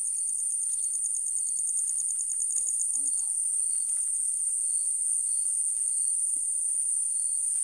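A chorus of crickets: a steady high-pitched trill, with a second, rapidly pulsing trill that stops about three seconds in, and short chirps repeating beneath.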